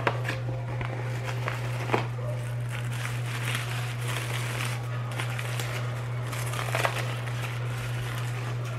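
Foil-lined paper burger wrapper crinkling and rustling as it is pulled open by hand, in irregular bursts with a few sharper crackles, over a steady low hum.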